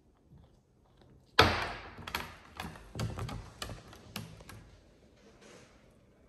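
A sudden loud knock about a second and a half in, then a run of sharp clicks and taps on a hard tabletop that die away over about three seconds, as a blue-and-gold macaw steps right up to the camera, its claws clicking on the table.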